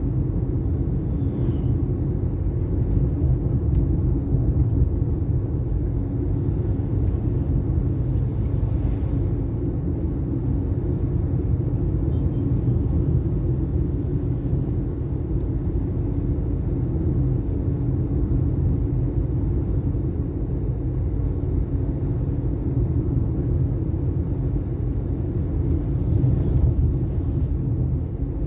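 Steady on-board road noise of a vehicle travelling along a highway: a continuous low rumble of engine, tyres and wind.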